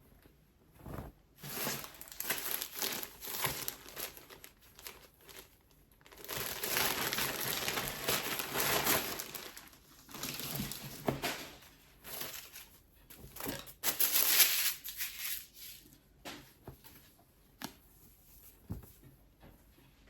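Plastic clothing packaging crinkling and rustling in handled bouts as an item is unwrapped, loudest for a few seconds in the middle and again briefly about two-thirds of the way through.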